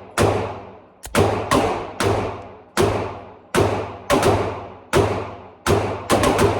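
A .45 ACP pistol fired in a steady string of about a dozen shots, roughly two a second with a few quicker doubles, each shot sharp and ringing out briefly after it.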